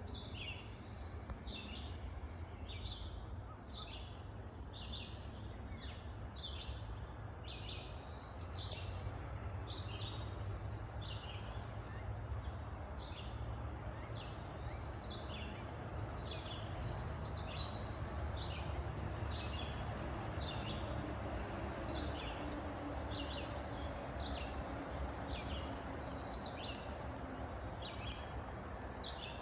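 Small songbird singing a long run of short, high, down-slurred whistled notes, about one a second, over a steady low background rumble.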